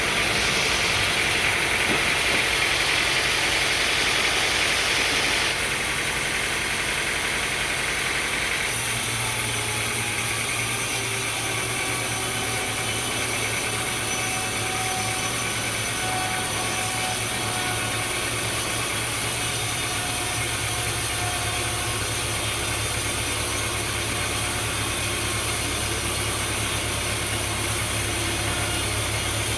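Sawmill machinery running steadily, with an engine hum underneath. A higher hiss stops about five seconds in, and a steadier low drone carries on after that.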